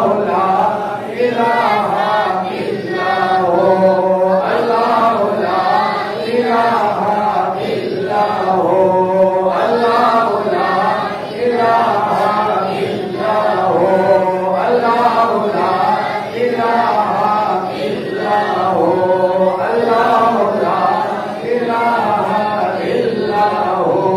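Male voices chanting a devotional Islamic milad recitation in short repeating melodic phrases.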